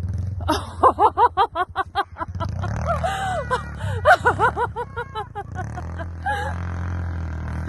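Breathless laughter from a child, a quick run of laughs about five a second through the first five seconds, over the steady low running of the Suzuki LTZ90 quad's 90cc four-stroke engine with its Big Gun exhaust.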